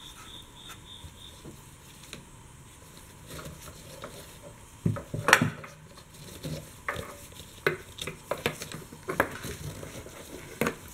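Light clicks, taps and rattles of gloved hands handling the fuel lines and wire loom on top of a Ford F-250's in-tank fuel sending unit, scattered through the second half with the sharpest knock about halfway in.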